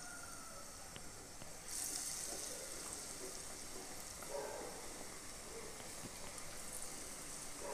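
Hot oil sizzling as batter-coated potato balls deep-fry in a saucepan; the sizzle steps up louder about two seconds in, as another battered ball goes into the oil.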